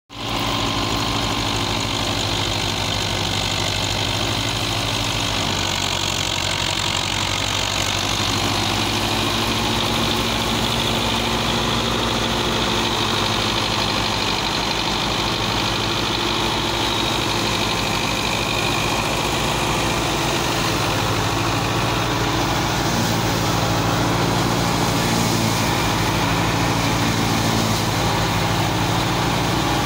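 Belarus tractor's diesel engine running steadily under load, belt-driving a grain thresher whose drum whirs along with it.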